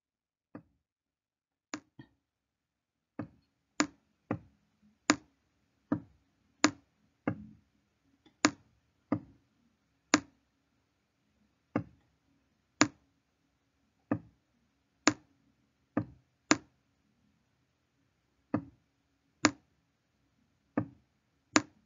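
Sharp single clicks, about two dozen at uneven gaps of roughly one a second, from handwriting a label on a computer screen stroke by stroke.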